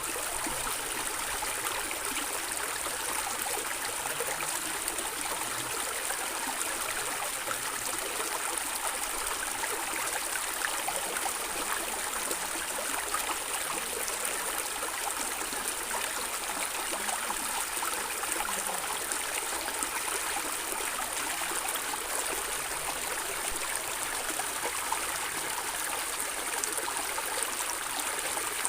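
Stream water flowing and gurgling steadily over stones, a constant rushing hiss with fine splashing detail.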